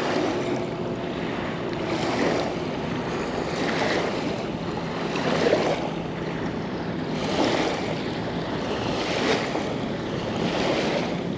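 Small river waves lapping and breaking on a sandy bank, a swell of splashing every couple of seconds, with wind on the microphone and a faint steady low hum underneath.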